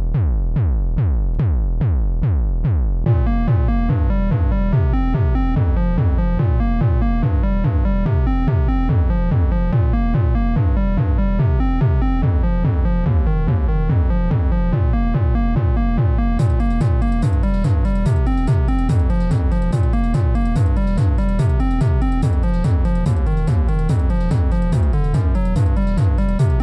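Electronic instrumental background music: a repeating synth figure over a deep bass beat, with a bright, fast ticking layer joining about halfway through.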